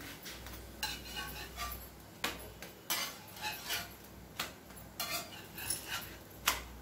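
Spatula knocking and scraping on a large dosa griddle (tawa) as parottas are turned and moved: about nine short clicks and scrapes at irregular spacing over a faint steady hiss.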